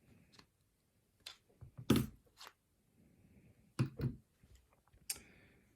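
Metal clicks and knocks from a padlock and lock-picking tools being handled, irregular, with three louder knocks about two, four and five seconds in.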